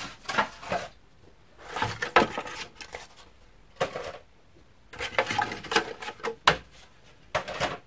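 Stiff, thin plastic of a cut-up translucent container being handled and flexed: irregular bursts of crackling and clattering, with short quiet gaps between them.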